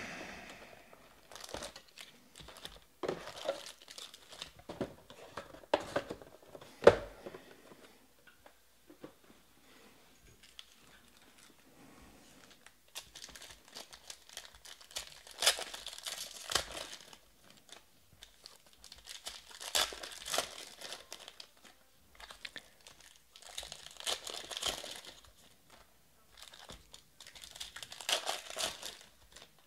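Foil trading-card pack wrappers crinkling and tearing as packs are lifted out of a cardboard box and ripped open by hand. The rustling comes in irregular bursts with a few sharp clicks in the first several seconds.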